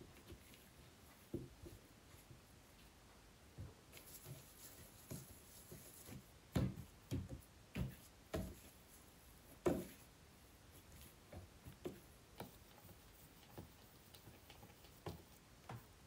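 Soft, irregular thuds and taps of yeast dough being cut, shaped into balls and set down on a plastic-covered table, with hands patting it flat; the two loudest thumps come about six and a half seconds in and just before ten seconds.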